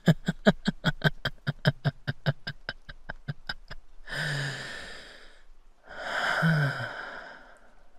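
A man laughing: a long run of quick, evenly spaced chuckles that fade out over about four seconds, followed by two long breathy sighs.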